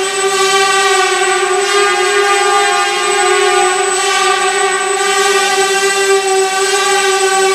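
Small quadcopter's four propellers and motors whining steadily in flight, one high buzzing tone whose pitch wavers slightly as the drone holds its position.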